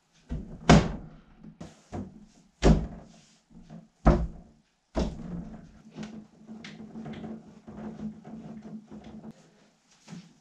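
Wooden kitchen island cabinet being handled during assembly: four loud knocks of wood in the first five seconds, then a few seconds of lighter knocking and scraping as the cabinet is tipped onto its side.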